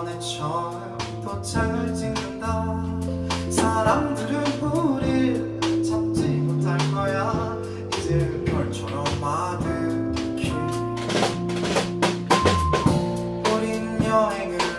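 Live band performing a pop song: a man singing with electric bass, acoustic guitar and keyboard, over a steady drum beat.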